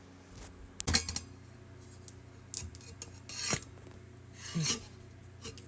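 A 40 oz Meoky tumbler being handled and opened to check its ice: a sharp clack about a second in, then a few short scraping and rubbing sounds of lid, cup and ice.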